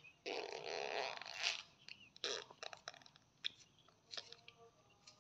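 Hands tearing the white pith off a large peeled fruit: one long tearing sound lasting about a second, a shorter one a little later, then scattered small crackles and clicks.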